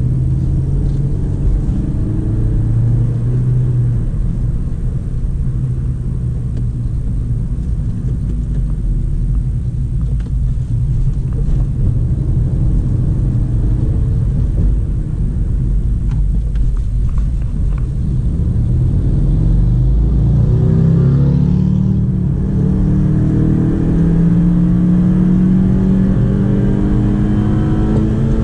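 Honda Civic G8 1.8 four-cylinder engine heard from inside the cabin over steady road rumble, cruising at first, then pulling harder with the engine note rising from about two-thirds of the way in, and falling away with a gear change at the very end.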